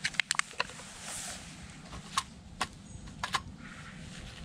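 Sharp clicks and light taps as a solid fuel block is handled and set into a folding metal army stove: a quick run of about six clicks at the start, then a few single ones and a close pair near the end.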